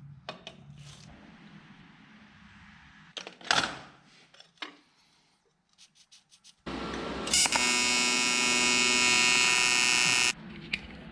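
An electric power tool's motor running at a steady, buzzing pitch for about three seconds in the second half, after a short burst of noise about a third of the way in.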